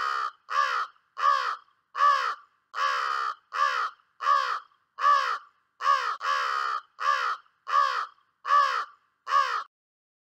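Crow cawing: a series of about fourteen caws, roughly one every 0.7 seconds, each falling slightly in pitch, with two drawn out longer than the rest.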